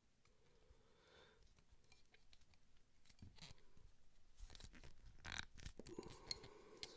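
Faint clicks and scraping of a hand crimping tool and metal crimp connector being worked onto a wire, mostly in the second half, pressing the crimp into a dimple.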